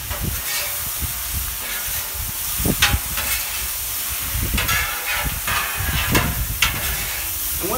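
Creamy sauce hissing and sizzling into steam on a hot Camp Chef flattop griddle while chicken and vegetables are tossed with two metal spatulas. Several sharp scrapes of the spatulas on the steel plate come through, mostly in the second half.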